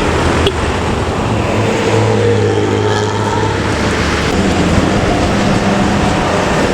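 Intercity bus engine running loudly through a 'ngorok' exhaust, with road and traffic noise. Its deep drone swells for a couple of seconds in the middle.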